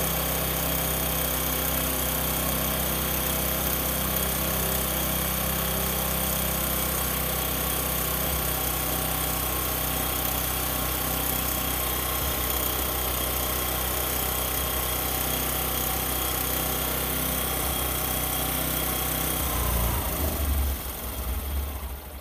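Bajaj Discover 125 single-cylinder four-stroke engine running steadily at raised revs, held near 4000 rpm while its carburettor air screw is adjusted for the air–fuel mixture. Near the end the engine sound changes and drops away as the revs come down.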